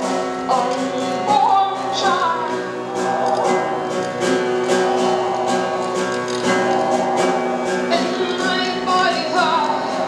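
Upright piano being played, notes struck in quick succession, with a voice singing gliding notes at times.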